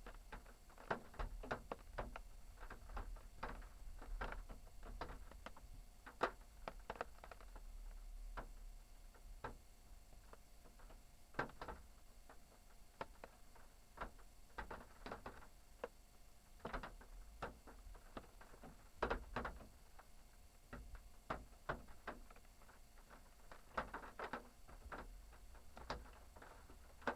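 Irregular sharp clicks and knocks, some in quick clusters, over a faint low rumble.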